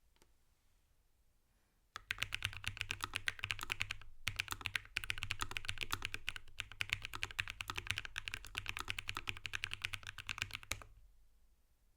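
Lofree Flow84 low-profile mechanical keyboard with Kailh Phantom switches being typed on quickly: a dense run of keystrokes starts about two seconds in, breaks off briefly, then resumes and stops about a second before the end.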